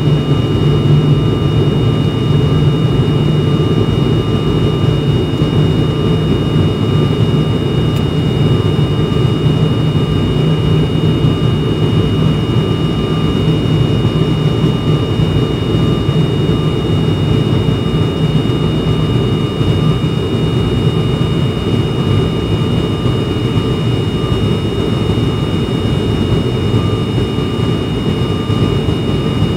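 ATR turboprop airliner's engines and propellers heard inside the passenger cabin: a steady low drone with a thin, steady high whine on top.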